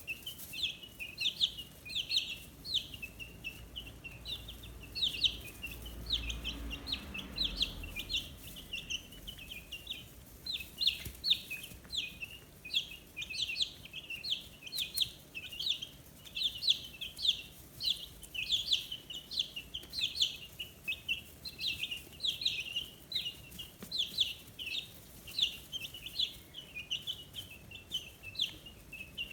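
A brood of two-week-old chicks peeping without a break, many short high peeps that slide downward, several a second and overlapping. A faint low rumble comes in about six seconds in and dies away by eight.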